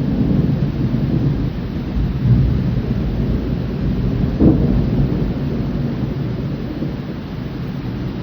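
Thunder rumbling over steady rain, with a sharper clap about four and a half seconds in, after which the rumble slowly dies away.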